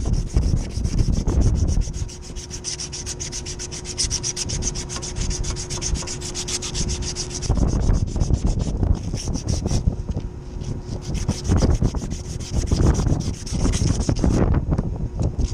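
A strip of abrasive sanding belt is drawn rapidly back and forth by hand around the steel shaft of an electric fan motor, sanding it in fast, even rasping strokes. The sanding stops about a second before the end.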